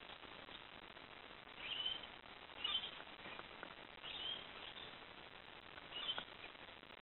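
Birds calling over a steady background hiss: about four short, high chirps spaced a second or two apart.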